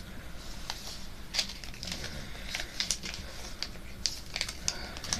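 A sheet of paper being handled and creased while a paper airplane is folded: irregular crinkles and sharp little crackles as the folds are pressed down.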